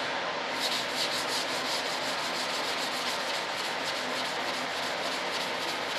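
A hand rubbing back and forth over the smooth, primed surface of an RC jet's hatch plug, about four or five quick swishing strokes a second, starting about half a second in. The plug is being sanded with fine paper and waxed to a shine before a mold is taken from it.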